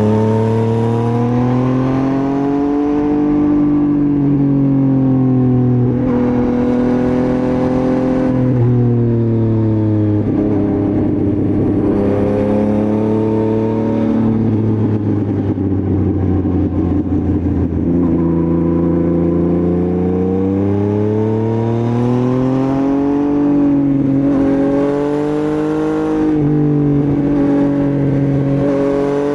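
Motorcycle engine running on the road, its pitch rising and falling repeatedly as it accelerates and eases off.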